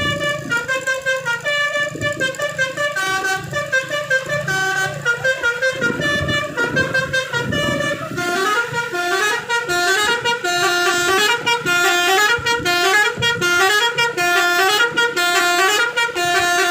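Bus 'telolet basuri' multi-tone musical horn playing a tune of short stepped notes, going up and down in repeating phrases. The tune gets louder and busier about halfway through.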